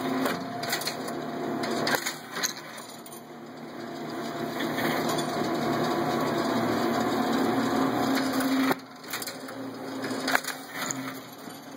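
Eagle 100 table-top semi-automatic strapping machine cycling on a box: sharp clacks and snaps as the plastic strap is drawn tight, heat-sealed and cut, over the steady hum of its motor, which drops away about nine seconds in before a few more clacks.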